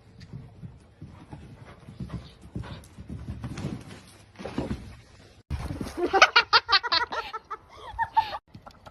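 Hoofbeats of a horse cantering on arena sand, as irregular low thumps. About five and a half seconds in, a louder pitched cry takes over, pulsing rapidly in short runs.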